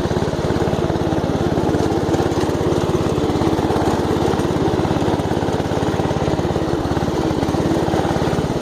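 Off-road riding lawn mower's small engine running steadily under way, with a fast, even firing pulse.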